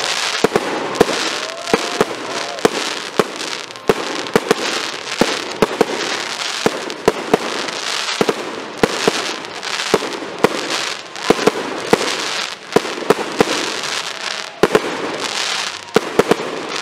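Aerial fireworks display: a rapid, continuous run of sharp bangs from shells launching and bursting, several a second, over a steady crackle and hiss from the bursts.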